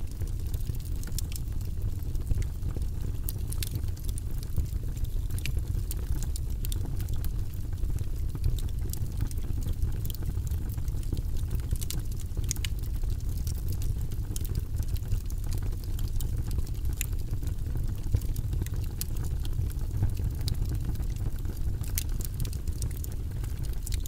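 Split logs burning in a brick fireplace: frequent, irregular sharp crackles and pops from the wood over a steady low rumble of the flames.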